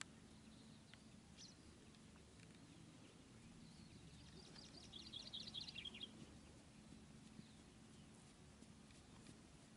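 Near silence with a faint outdoor background, broken about halfway through by a brief burst of high, rapid bird twittering lasting about a second and a half.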